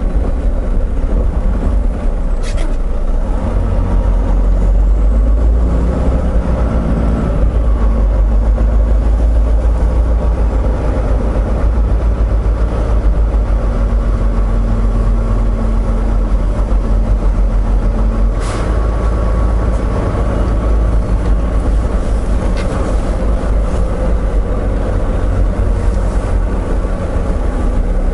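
Volvo VNL860 semi truck running: a steady low rumble of engine and road noise, with a few brief clicks.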